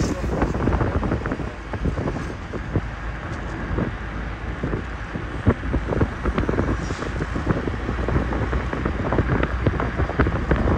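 Wind buffeting the microphone of a phone held out of a moving vehicle, with irregular thumps over a steady low road rumble.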